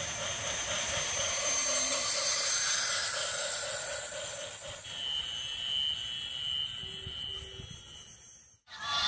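Battery-powered toy train running along plastic track: a small motor whirring under a steady hiss, with a regular pulsing through the first half and a thin steady tone about halfway through.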